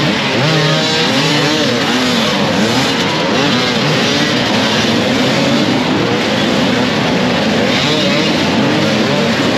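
A pack of enduro dirt bikes riding together, many engines at once, each revving up and down over and over as the riders work the throttle.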